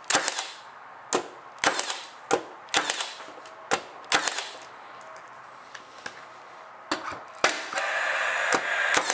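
Milwaukee M18 18-gauge cordless brad nailer firing nails into a cherry board: about nine sharp cracks in quick irregular runs, each a single nail driven home. Near the end a steady whirr sets in, with two more shots over it.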